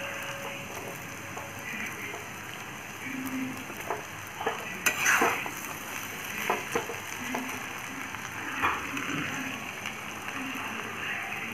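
Boiled basmati rice and vegetables frying in a hot wok, with a steady sizzle as a metal spatula stirs and turns the rice. The spatula scrapes and knocks against the pan several times, loudest about five seconds in.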